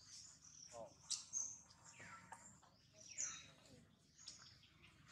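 Faint forest birdsong: scattered short, high chirps and whistles, with a few falling calls.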